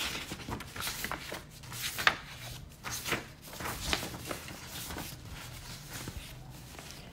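Scattered soft clicks and rubbing sounds: handling noise of the smartphone that is recording, held in the hand while its screen is scrolled.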